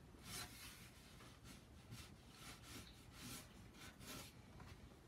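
Felt-tip marker scratching across paper in a series of short, faint drawing strokes.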